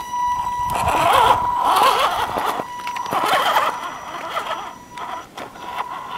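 Axial SCX10 radio-controlled crawler's electric motor and gear train whining at a steady pitch, the pitch wavering as the throttle is worked, with light clicks of the tyres on rock. The sound fades as the truck climbs away.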